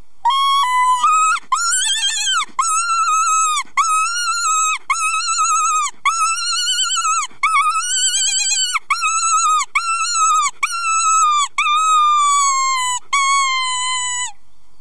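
Lockschmiede Fuchsmagnet, a mouth-blown walnut predator call, blown in a series of about a dozen wavering, squealing cries with short breaks between them, the last few drawn out and falling in pitch. It imitates the cries of a dying small rodent, a distress series played to lure foxes.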